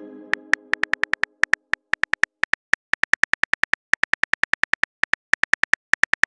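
Simulated smartphone keyboard clicks as a message is typed out, quick runs of short ticking clicks with small gaps between words. A ringing tone dies away in the first second.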